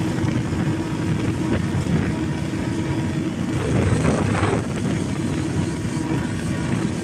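Motorboat under way at speed: a steady engine drone mixed with rushing noise, swelling briefly about four seconds in.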